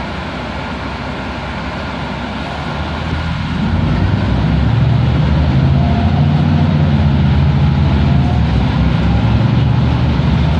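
Mercedes-Benz O405G articulated bus on the move, heard from inside the passenger cabin: a low diesel engine drone with road noise, the engine growing louder about four seconds in.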